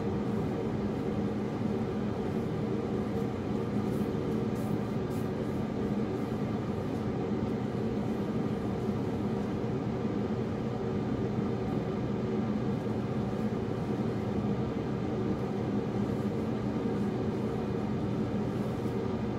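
A steady mechanical hum with a low droning tone, unchanging in level.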